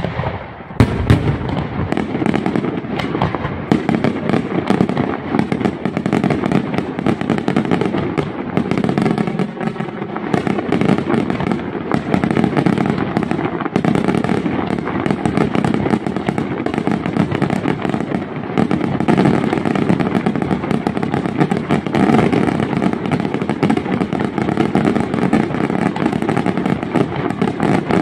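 Aerial fireworks barrage: a dense, continuous rapid-fire crackle of shell bursts and bangs that starts suddenly and keeps going without a break.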